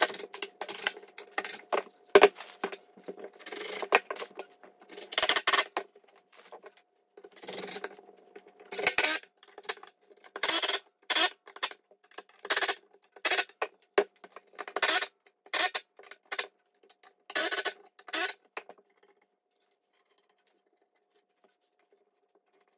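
Cordless impact driver driving screws into a pine table-leg brace in a string of short bursts, one after another, stopping a few seconds before the end.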